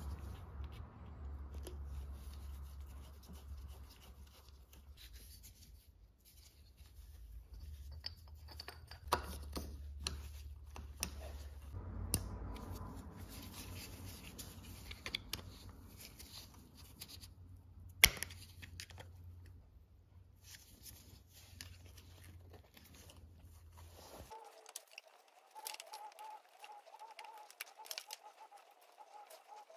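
Quiet hand work on a two-stroke dirt-bike engine's top end: a shop rag rustling and small metal parts clicking as a new piston is fitted to the connecting rod and the cylinder is slid down over it, with one sharper click past the middle.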